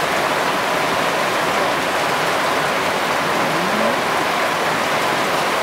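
Heavy rain falling steadily onto a street in a downpour, an even, unbroken wash of water noise.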